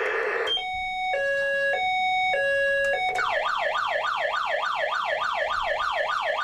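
Electronic sound module of the 1992 G.I. Joe Headquarters toy playset, switched through its siren effects: a two-tone hi-lo siren alternating about every half second, then, about three seconds in, a fast warbling siren sweeping up and down about four times a second.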